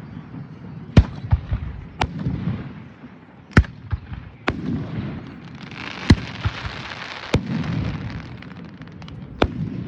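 Aerial fireworks bursting overhead: about seven sharp bangs, roughly a second apart, each followed by a low rolling echo, with a hissing crackle from the shells in the middle.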